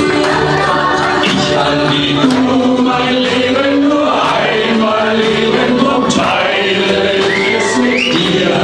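A group of men singing a song together in unison over backing music, one voice amplified through a handheld microphone.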